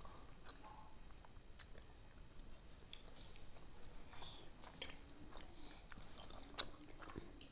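Faint sounds of people eating a rice meal by hand: soft chewing with scattered small clicks.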